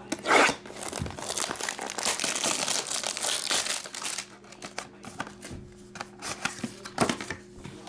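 Plastic shrink wrap on a sealed trading-card box being slit with a knife, a short sharp burst at the start, then crinkled and peeled off for a few seconds, followed by quieter handling of the cardboard box.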